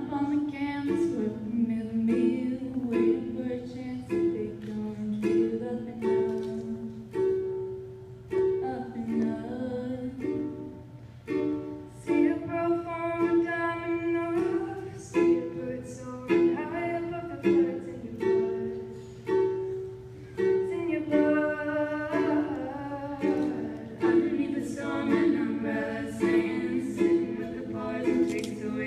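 Three women's voices singing a song together in harmony into microphones, over a steadily strummed small acoustic string instrument.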